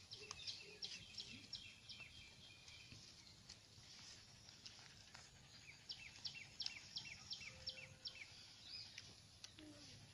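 Faint bird song: two phrases of quick repeated high chirps, one near the start and one about six seconds in, over a quiet outdoor background.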